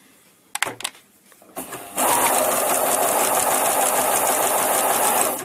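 A few light clicks, then about two seconds in an electric domestic sewing machine starts stitching at a steady fast rate, stopping just before the end.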